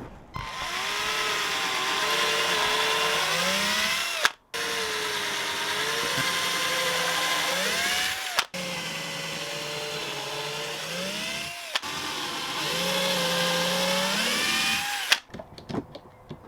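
Power drill boring pilot holes into a wooden beam: the motor whine rises and falls with trigger and load, in about four long runs with short stops between.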